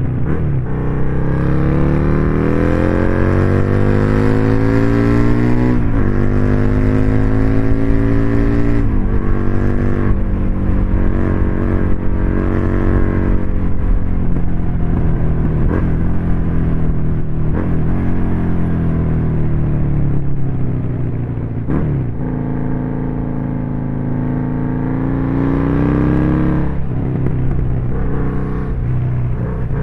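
Husqvarna Nuda 900's parallel-twin engine on its stock exhaust, running under load: the engine note climbs in pitch, drops sharply and climbs again several times.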